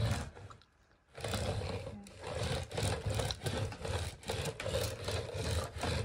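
Floor head of a Silvercrest cordless stick vacuum pushed back and forth over carpet with its motor off, the brush roll and wheels rubbing and rumbling in uneven strokes, starting about a second in.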